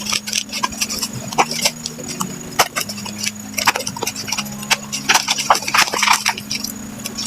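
Soft background music with low held notes that change every second or so, over repeated short clicks and rustles of a plastic lightstick and its packaging being handled.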